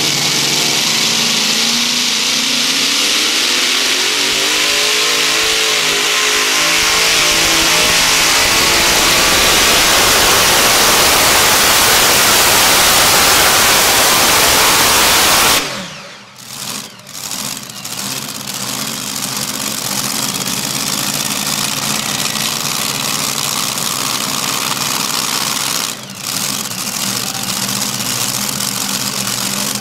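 Multi-engine supercharged modified pulling tractor under power on a pull: the engines rise in pitch over the first several seconds, then run flat out at full power dragging the weight sled. About 16 seconds in they cut back abruptly and settle to a lower, steady running sound.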